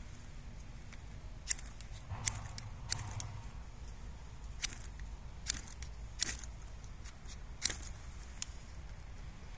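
Striker scraping on a ferro rod (fire steel) in short, sharp strokes, about nine spread irregularly, without throwing a spark.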